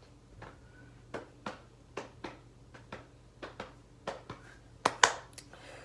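A series of short, sharp clicks at an uneven pace of about two a second, with two louder clicks near the end.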